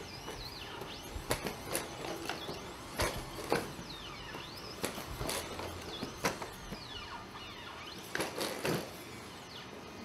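Atlas humanoid robot's hydraulic actuators whining, the pitch sliding up and down again and again as it moves, with irregular knocks and thuds as its feet and body strike the floor.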